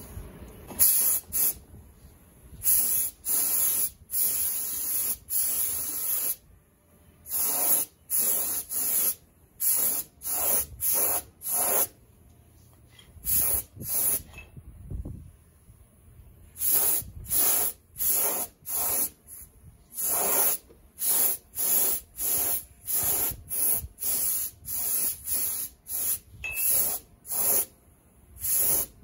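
A compressed-air spray gun with a gravity-feed cup hisses in short bursts, one after another, as its trigger is pulled and released to spray basecoat paint onto a motorcycle fuel tank. There are a couple of longer pauses between runs of bursts.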